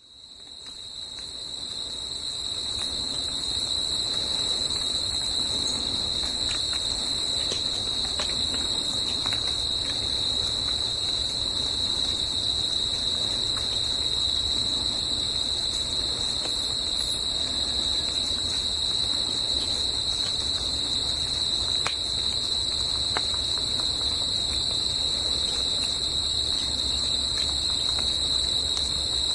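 Crickets trilling in a steady, unbroken high-pitched chorus that fades in over the first few seconds.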